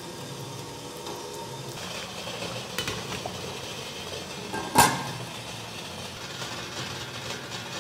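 Steel spoon scraping and clicking lightly on a steel steaming plate. About five seconds in comes a single sharp metallic clank with a short ring as a stainless steel lid is set down on the idli steamer pot.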